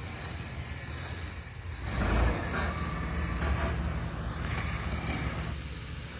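Off-road vehicle engine running, revving up about two seconds in, then carrying on steadily.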